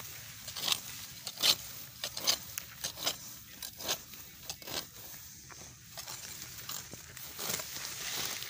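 Hand sickle cutting grass stems close to the ground: repeated short crunching rips with rustling, roughly two a second and uneven, thinning out for a while around the middle.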